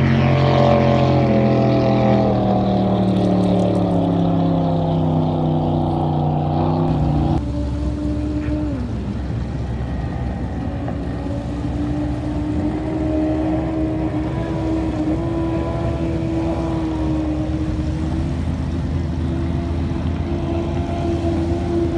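Speedboat engines running at speed. For the first seven seconds the engine note falls steadily in pitch as the boat passes or slows. After an abrupt change about seven seconds in, an engine holds a steadier note with small rises and dips.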